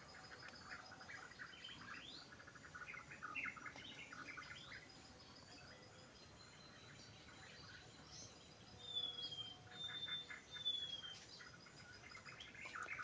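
Faint wild birds chirping and calling, with three short falling whistled notes about nine to eleven seconds in. A steady high thin tone runs underneath and stops about ten seconds in.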